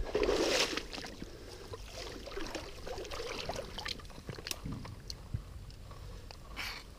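Water sloshing and splashing as a hand and arm grope in shallow river water among weeds and roots under the bank. A louder burst of sloshing comes in the first second and another near the end, with small clicks and rustles of wet weeds between.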